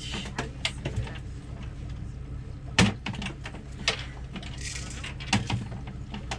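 Scattered knocks, clicks and rustling as a freshly caught burbot is handled on the fish-house floor, with one louder knock about three seconds in, over a steady low hum.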